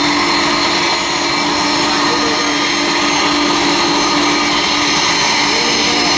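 Boeing 747-400's four jet engines running with a steady whine over a rushing hiss, the jet on the runway for takeoff.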